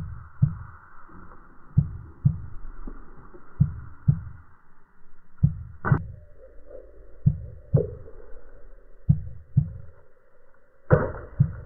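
Heartbeat-style soundtrack effect: a pair of low thumps, lub-dub, repeating evenly about every second and three quarters over a faint steady drone.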